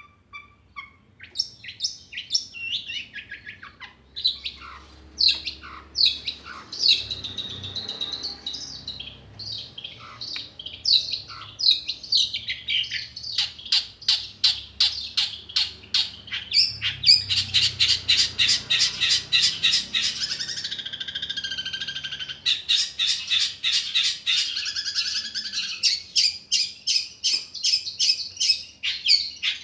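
Long-tailed shrike (cendet) singing: a continual run of sharp, high chirps, several a second, getting denser and louder from about the middle on.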